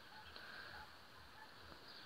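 Near silence: faint outdoor ambience with a few very faint, short chirps spread through it.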